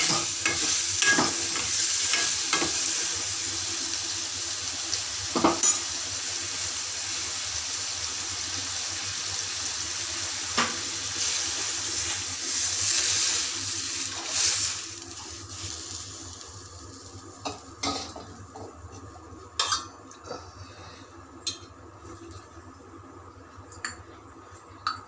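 Food sizzling in hot oil in a pan while being stirred with a spoon. The sizzle dies down about fifteen seconds in, after which only a few separate knocks of the spoon against the pan are heard.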